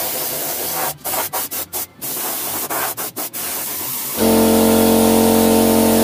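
Air spray gun hissing as paint is sprayed, the trigger released and pulled again in a quick run of short stops about a second in and again around three seconds. About four seconds in, a loud steady hum with several pitches comes in over the hiss and is the loudest sound.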